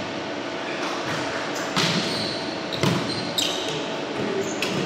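Volleyball rally in an echoing gym: sharp slaps of hands and forearms on the ball, four hits about a second apart from a little under two seconds in, with short high squeaks of sneakers on the hardwood floor between them.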